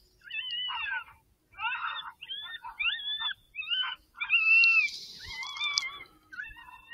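Coyote vocalizations: a rapid string of short yips and wavering whines, about eight in a row, each sliding up and down in pitch.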